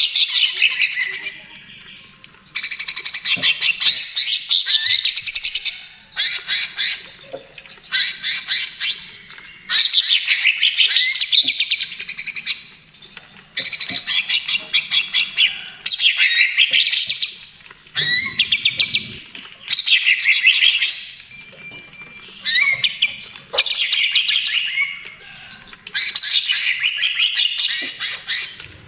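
Cucak ijo (greater green leafbird) singing hard in the rapid, chattering 'trotol' style: bursts of fast, high notes a second or two long, one after another with short breaks.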